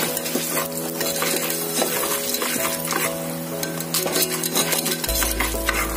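Unpopped popcorn kernels frying in hot oil with spices in a pressure-cooker pot, stirred with a metal slotted spoon: steady sizzling with quick clicks and scrapes of the spoon and kernels against the pot, over background music. The kernels are heating but not yet popping.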